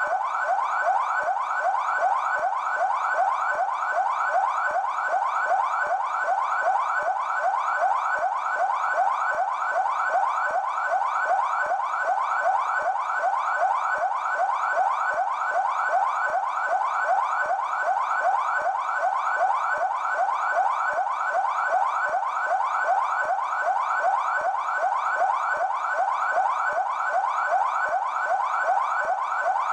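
PMESP police car siren sounding in yelp mode: a fast, evenly repeating sweep in pitch, several cycles a second, held steady without a break.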